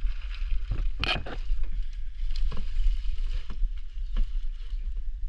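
Kayak paddling through marsh water: irregular paddle splashes and knocks about once a second, one louder splash about a second in, over a steady low rumble.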